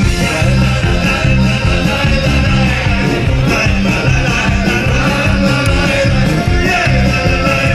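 Live band playing loudly and steadily, with electric guitar, fiddle, accordion and drums, and a man singing.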